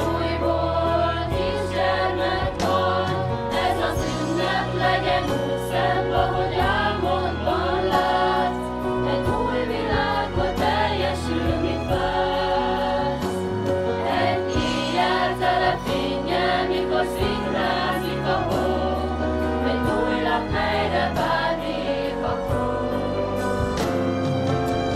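A group of young singers, mostly female voices, singing a Hungarian Christmas song together into microphones over an instrumental accompaniment with a steady bass line.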